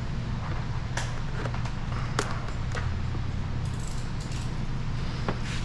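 Clear paint protection film being stretched and handled by hand, giving scattered short crackles and ticks, about a second in, a couple of seconds in and near the end, over a steady low background hum.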